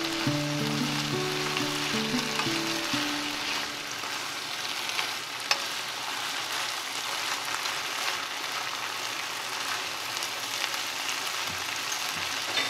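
Octopus and vegetables in spicy sauce sizzling in a hot frying pan while being stirred and tossed, a steady frying hiss. One sharp tap about halfway through.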